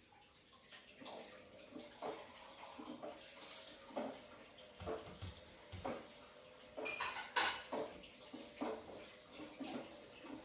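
Washing machine running: water sloshing in the drum with irregular clunks and clatters over a faint steady hum.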